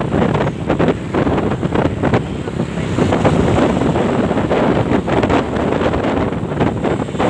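Loud wind buffeting on the microphone of a moving scooter, over the noise of traffic and trucks alongside.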